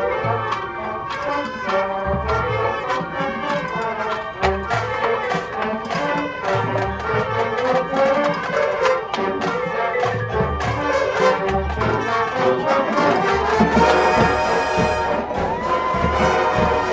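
High school marching band playing its field show, brass over a steady drum beat; near the end the brass settles onto a long held chord.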